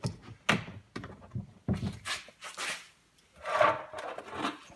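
A rubber Uni-seal grommet being worked into a drilled hole in the wall of a plastic Brute trash can: a run of knocks and rubs against the hollow plastic, with a longer scraping rub about three and a half seconds in.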